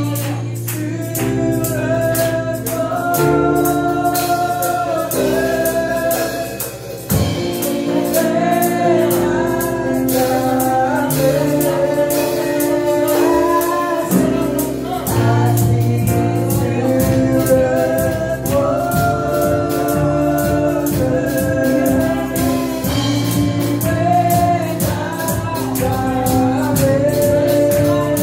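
Live gospel worship music: women singing a held, flowing melody into microphones over an electronic keyboard, with a drum kit and a tambourine keeping the beat.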